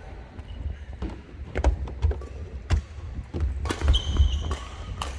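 Badminton rally: several sharp racket strikes on the shuttlecock, roughly a second apart, with sneakers squeaking briefly on the court floor in the middle and thudding footsteps under it all, in an echoing hall.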